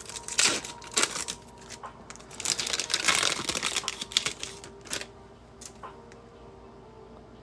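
Trading cards and foil pack wrappers being handled: quick clicking and crinkling as cards are slid, tapped and stacked. It thins out to a few faint ticks after about five seconds.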